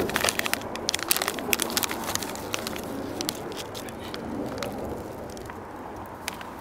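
Plastic snack bag crinkling as it is handled: a quick run of sharp crackles that thins out after the first few seconds.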